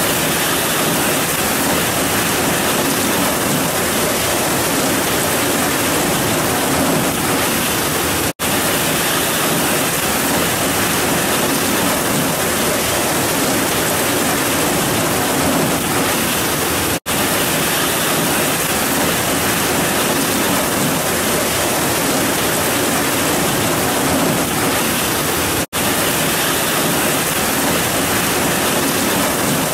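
Heavy rain falling steadily in a dense, even hiss, broken three times by a split-second gap in the sound.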